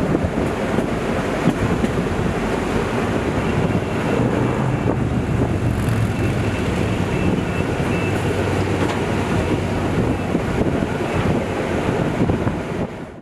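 Passenger train running at speed: steady rolling rumble with wind buffeting the microphone. It fades out near the end.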